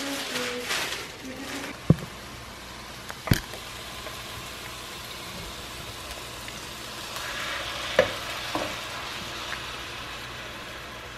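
Food sizzling in a hot pan, a steady hiss, with a few sharp knocks of utensils or cookware, the loudest about 2, 3 and 8 seconds in.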